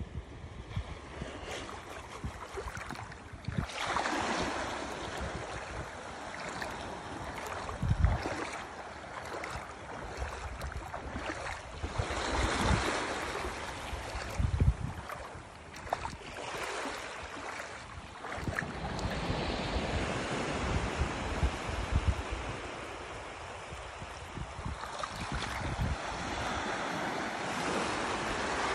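Small waves lapping and breaking in shallow water at the shoreline, the wash swelling and fading every few seconds. Gusts of wind buffet the microphone now and then.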